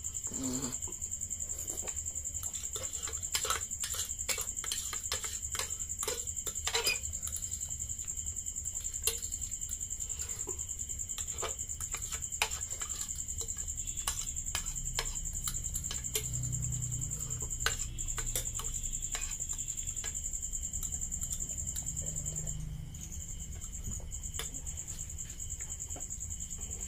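Metal forks clicking and scraping irregularly on ceramic plates as noodles are eaten, over a steady high-pitched whine.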